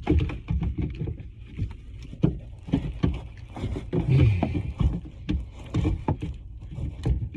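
Irregular knocks, thumps and rustling of someone shifting about in a cramped crawl space while handling tools and drain pipes, the loudest thump about four seconds in.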